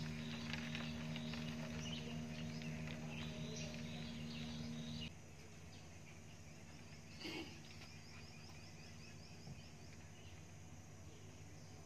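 Quiet outdoor background: a steady low hum with faint handling clicks, which stops abruptly about five seconds in, leaving a softer hush with faint high chirping repeated at an even rate and one brief noise a couple of seconds later.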